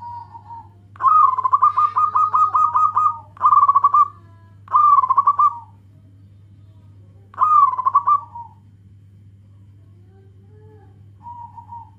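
Zebra dove (perkutut) cooing: a long run of quick, rippling pulsed notes about a second in, then three shorter phrases over the next few seconds and a faint one near the end. A steady low hum sits underneath.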